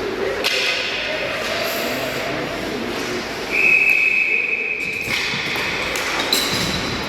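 Ice hockey rink sound: skates scraping the ice and sticks and puck knocking several times, with faint voices. About halfway through, a single steady high whistle sounds for about a second and a half, a referee's whistle stopping play.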